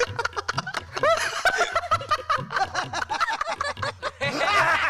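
Men laughing hard together in many quick bursts of laughter, with a short break about four seconds in.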